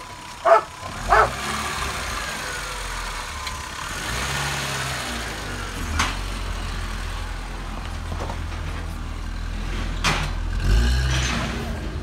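A dog barks twice about half a second and a second in, then a car's engine runs steadily at low speed as it pulls in, growing louder near the end.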